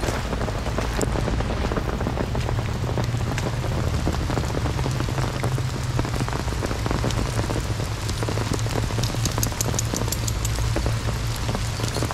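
Steady heavy rain falling, a dense patter of drops over a constant low rumble. About three-quarters of the way through comes a quick run of sharper ticks.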